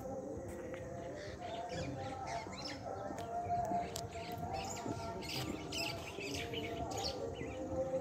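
Small birds chirping and calling in garden trees, a steady scatter of short high notes that is busiest in the middle of the stretch.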